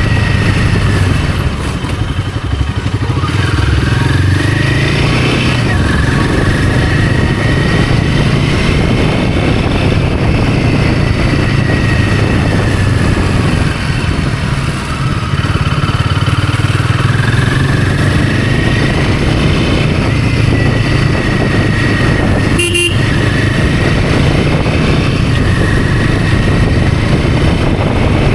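Royal Enfield Himalayan 450's 452 cc single-cylinder engine running on the move, its revs rising and falling repeatedly with two brief dips as the throttle comes off. A short horn beep sounds about two-thirds of the way through.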